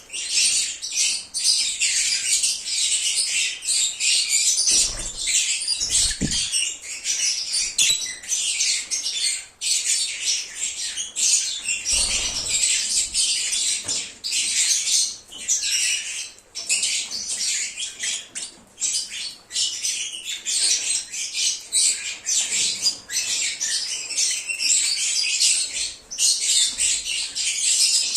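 A flock of lovebirds chirping and squawking in dense, continuous high-pitched chatter, with a few low thumps about five, six and twelve seconds in.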